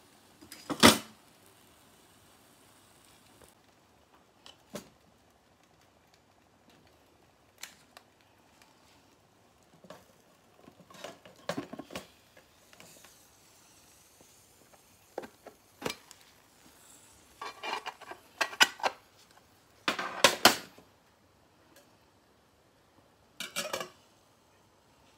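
Aluminium mess tin and metal camping cookware being handled: scattered metal knocks and clinks, the loudest about a second in, with clusters of clattering later on. The last clinks near the end come as the alcohol stove is put out.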